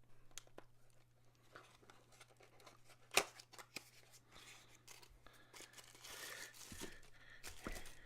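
Product packaging being opened and handled by hand: scattered small clicks with one sharp click about three seconds in, then rustling and tearing from about five seconds on.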